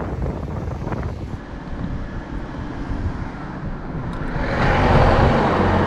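A road vehicle driving past close by: tyre and engine noise swells to its loudest about five seconds in, with a low engine hum near the end.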